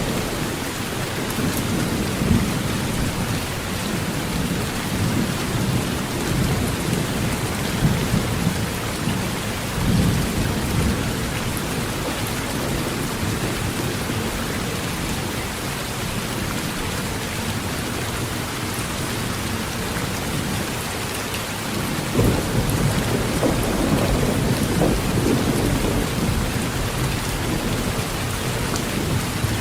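Steady heavy rain on a tin roof, with low rolling thunder that rumbles through the first third, eases off in the middle and builds again about two-thirds of the way in.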